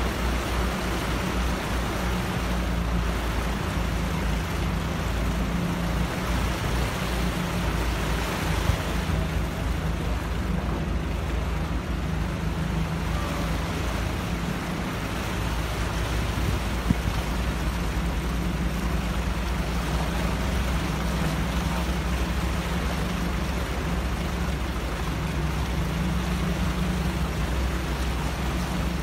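Heavy vehicle's engine running steadily as it wades through floodwater, with a continuous rush and splash of water around the wheels.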